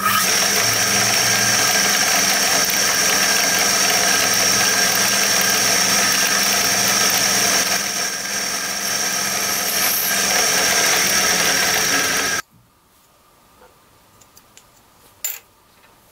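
Drill press running, its bit boring through the centre of an abrasive grinder cutting disc held in a machine vice: a steady grinding noise with a high whine over it. It cuts off suddenly about twelve seconds in, leaving only a few faint taps.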